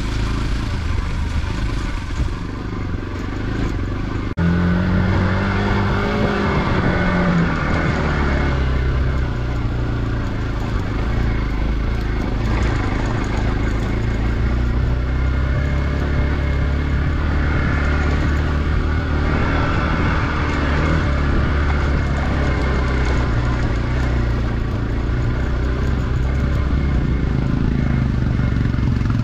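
Motorcycle engine running under way, heard from the rider's position on the bike, its pitch rising and falling a few seconds in as the throttle is worked. It gets suddenly louder about four seconds in.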